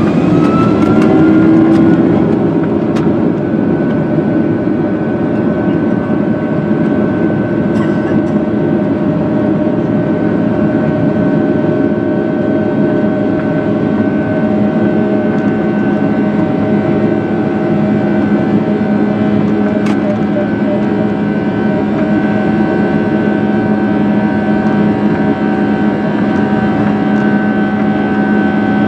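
Boeing 757-300's jet engines heard from inside the cabin, whining up in pitch over the first couple of seconds as they spool up to takeoff thrust, then a loud, steady roar with several held engine tones.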